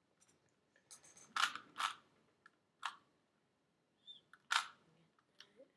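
3x3 plastic Rubik's Cube being twisted by hand: sharp plastic clacks as its layers turn, about four loud ones at uneven intervals with quieter clicks between.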